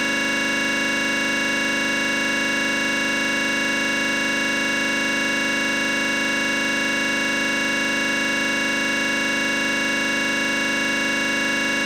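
Sustained synthesizer drone: a chord of held tones that does not change, with a hazy, noisy edge.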